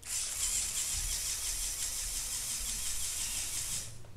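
Small electric motor and plastic gears of a motorised Lego Technic model running with a high-pitched whir. It switches on suddenly, cuts out for a moment near the end, then starts again.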